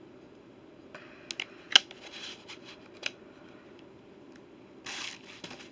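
Sharp clicks and knocks from camera accessories and packaging being handled, the loudest a little under two seconds in, then a brief rustle of packaging near the end.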